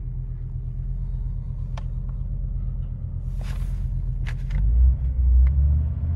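1986 Audi 4000CS Quattro's 2.2-litre inline five-cylinder idling steadily soon after a cold start, heard from inside the cabin. In the last second and a half the revs rise and the note grows louder. A brief rustle about three and a half seconds in and a few light clicks come with it.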